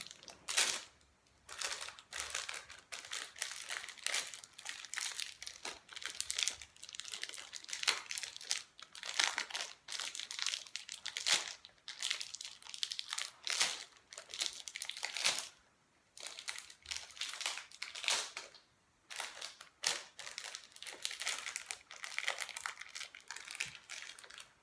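Plastic wrapper of a small chilli-challenge packet crinkling as it is handled and pulled at by hand, in irregular crackly bursts with a couple of short pauses.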